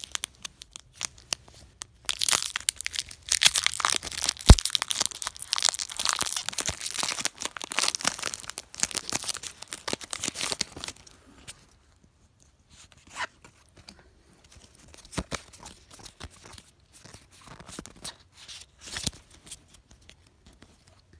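Foil wrapper of a Pokémon TCG Unified Minds booster pack being torn open and crinkled, with a sharp snap about four and a half seconds in. Quieter, scattered rustling follows as the cards are pulled from the opened pack.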